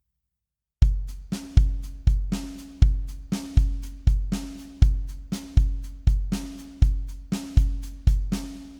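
Drum beat of bass drum and snare in a steady rock-style rhythm, starting about a second in and stopping near the end, the last hit ringing out.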